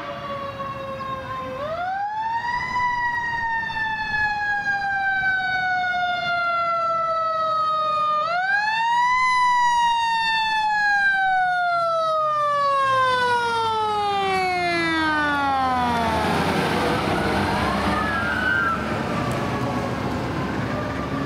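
Fire engine siren sounding twice, each time rising quickly and then falling slowly in pitch. The second fall dies away as the engine passes close by, leaving its engine and road noise, with a faint second siren rising and falling behind it.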